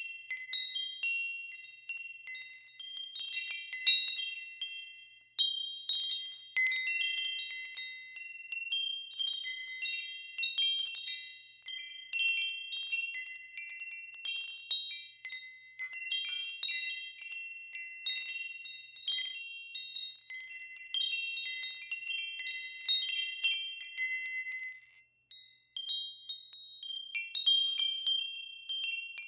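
Wind chimes ringing in irregular, overlapping strikes of several high notes, with a brief lull about 25 seconds in.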